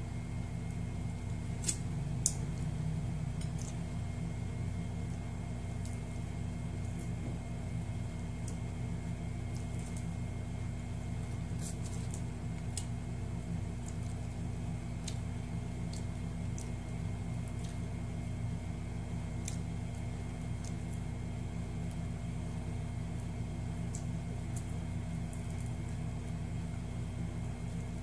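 Eating sounds of shrimp being peeled and eaten by hand: scattered soft clicks, with two sharper clicks about two seconds in, over a steady low room hum.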